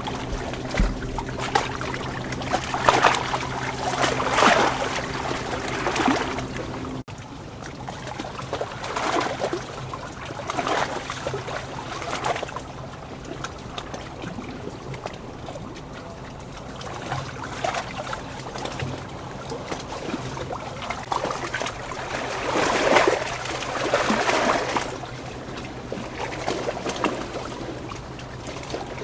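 Water trickling and splashing in irregular surges over a steady low hum, with an abrupt break about seven seconds in.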